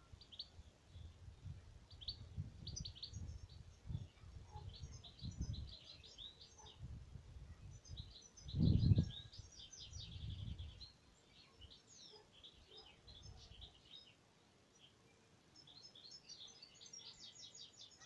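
Small songbirds chirping and twittering in quick high trills. Low gusts of wind buffet the microphone through the first half, the strongest about nine seconds in.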